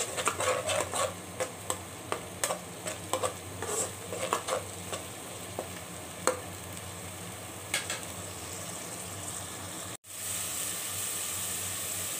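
Metal slotted spatula stirring onion and tomato paste frying in oil in a pot, clicking and scraping against the pot over a steady sizzle. The stirring stops about eight seconds in; after a brief dropout near ten seconds the sizzling carries on alone.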